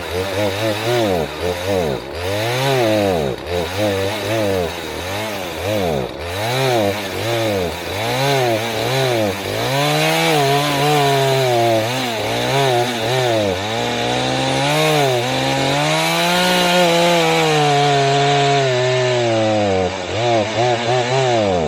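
Two-stroke chainsaw engine running and being revved in short blips, rising and falling about once a second, then held at higher revs for a few seconds near the end before dropping back.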